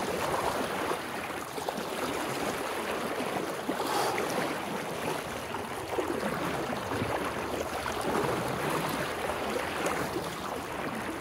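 Fast-flowing floodwater of a swollen river rushing and splashing around someone wading through it waist-deep: a steady wash of water that swells and eases a little.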